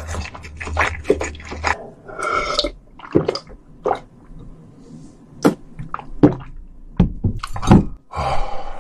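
Close-miked mouth sounds of a person eating fire noodles and drinking water: wet lip smacks and tongue clicks, a couple of breathy exhales, and gulps of water swallowed from a glass, with the strongest thuds near the end. The glass is set down near the end.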